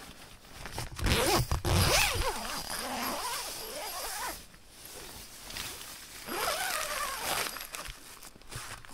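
Zippers on the doors of a Husky Flame 2 tent being pulled along in two long runs, the first about a second in and lasting around three seconds, the second shorter, about six seconds in.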